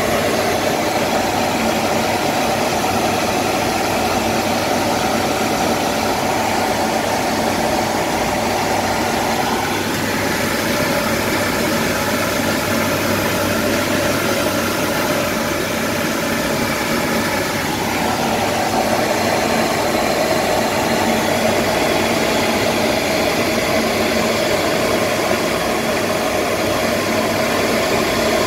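Steady aircraft cockpit noise in flight: engines and rushing air. Its pitch shifts slightly about ten seconds in and shifts back about eight seconds later.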